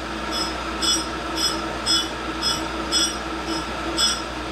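Tool and cutter grinder running with a steady motor hum, a diamond cup wheel grinding a chuck wrench as the work is run back and forth across it. The grinding hiss pulses about twice a second, every other pulse louder.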